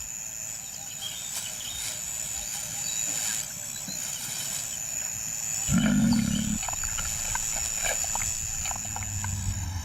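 A lion's low roar or grunt, about a second long, some six seconds in, over a steady high-pitched insect buzz.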